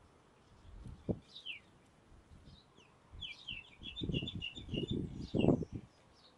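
Small birds calling: one falling call about a second in, then a quick run of short chirps in the middle and another call near the end. A low rumbling noise comes in under the later calls.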